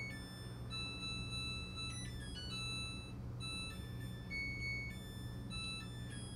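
Washing machine playing its electronic end-of-cycle melody: a string of beeping tones that step up and down in pitch like a short tune, over a steady low hum.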